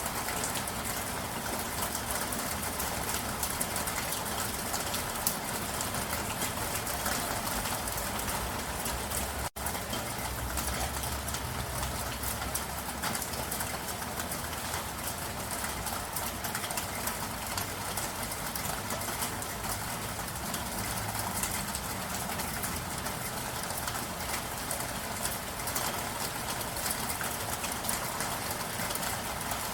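Steady rain falling, an even hiss with many fine drop ticks. It cuts out for a split second about nine and a half seconds in.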